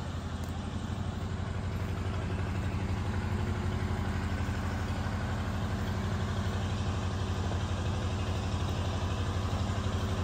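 An engine running steadily at a constant speed, a low hum with a fast even pulse that grows a little louder over the first couple of seconds.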